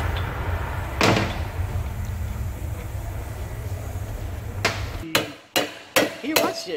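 A steady low hum with two single knocks. A little after the middle the hum cuts off, and a quick run of sharp metallic knocks and clinks follows, from tools and parts on an opened Ford 8.8 rear differential.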